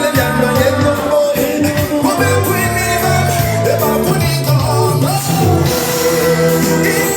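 Loud party music with singing and a heavy bass line.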